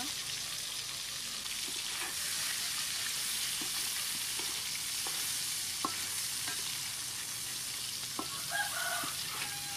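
Mantis shrimp sizzling steadily in hot oil in a metal wok while a wooden spatula stirs them, with a few short scrapes and taps against the pan.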